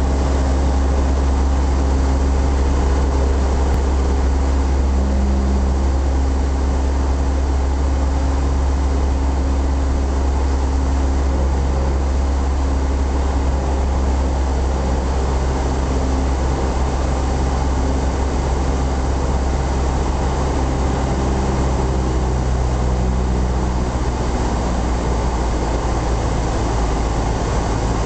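Cessna 172SP's four-cylinder Lycoming engine and propeller running steadily, heard inside the cockpit as a loud, deep drone. It eases slightly near the end.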